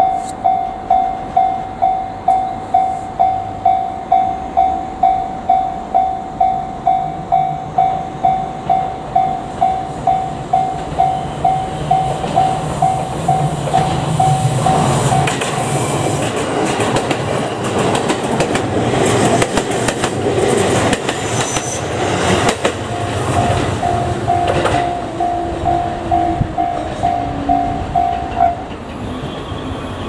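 Japanese level-crossing warning bell dinging in a steady rhythm. About halfway a JR Kyushu 787 series electric limited-express train rushes through the crossing, its wheels clattering over the rail joints and drowning out the bell for about ten seconds. The bell is heard again as the train clears and stops shortly before the end.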